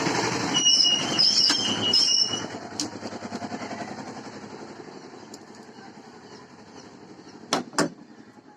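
Meat grinder running and crushing Kurkure corn puffs, a loud rough grinding noise with a brief high squeal in the first couple of seconds. The noise dies away over a few seconds, then two sharp knocks come near the end.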